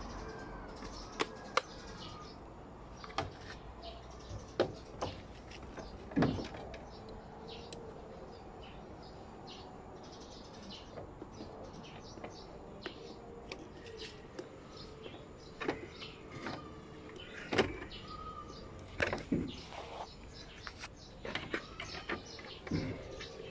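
Scattered clicks and knocks of plastic and metal parts being handled and fitted, as a water-inlet solenoid valve is installed in a washing machine, with several sharper knocks in the second half.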